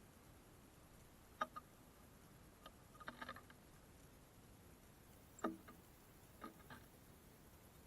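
Small birds pecking at food on a homemade bird feeder: a few scattered light taps, with a quick cluster of taps about three seconds in, over near silence.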